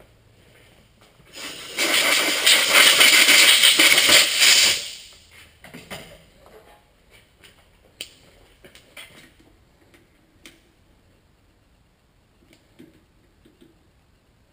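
A loud, even hissing rush of noise lasting about three seconds, followed by a few light clicks.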